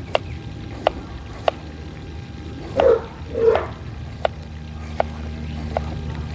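Chef's knife slicing a cucumber on a wooden cutting board: a sharp tap each time the blade meets the board, about one every two-thirds of a second, with a pause in the middle. About three seconds in, two short, louder calls sound close together.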